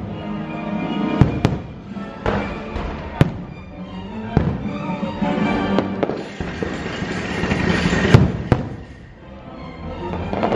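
Aerial fireworks going off in a string of sharp bangs at uneven intervals, the loudest two close together near the end, over the show's music.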